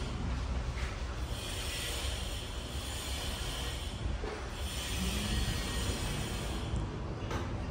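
Automatic sliding door with a slim aluminium-framed glass leaf running along its overhead track: a soft hiss from the operator and rollers in two stretches of about three and two seconds, over a low steady rumble.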